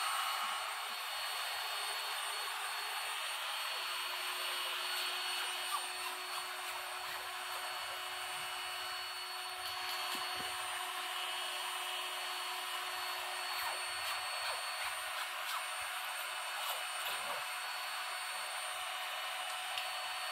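Maspion electric hand mixer running steadily, its beaters whisking a basin of coconut oil mixed with KOH powder to lift impurities out as foam. A few faint clicks sound over the whirr.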